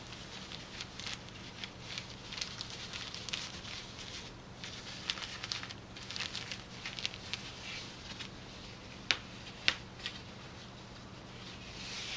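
Cloth rustling and light crackling as a fabric ostomy belt is unfolded and spread over the belly by hand, with two sharp clicks a little over half a second apart about nine seconds in.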